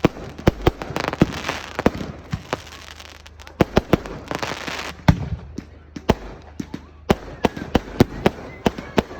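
Fireworks display: a rapid, irregular series of sharp bangs and cracks. There are bursts of hissing crackle about a second in and again around four to five seconds, and a quick run of bangs near the end.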